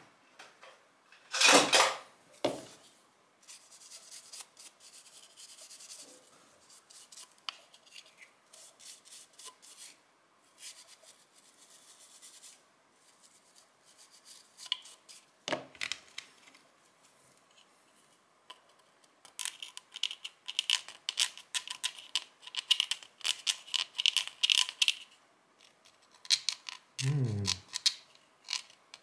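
A small stiff brush scrubbing dirt out of the grooves of an Stgw. 57 rifle's pistol grip in a run of quick strokes. There is a single loud knock about a second and a half in and another about halfway through.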